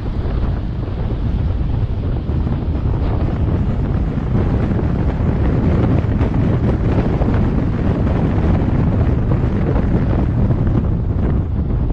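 Wind buffeting the microphone of a camera on a moving vehicle, mixed with road noise: a steady, low rumbling rush.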